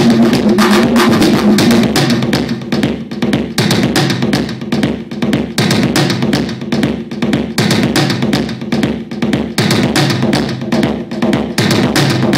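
Loud live electronic music from hardware drum machines and effects: a rapid, dense stream of drum hits over a low droning tone. About two seconds in, the drone drops back and the beat turns choppier and more pulsing.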